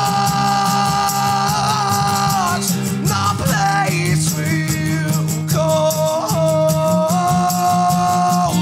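Male singer belting long held notes over a strummed acoustic guitar, in a live unplugged performance of a rock song.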